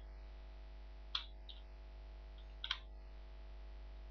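Two keystrokes on a computer keyboard, about a second and a half apart, the second a quick double click, over a steady electrical hum.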